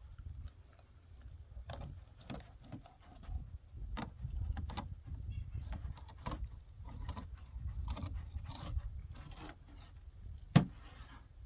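Knocks, scrapes and clicks of a crappie being cleaned with a knife on a fish-cleaning table, over a low rumble. One sharp, much louder knock about ten and a half seconds in.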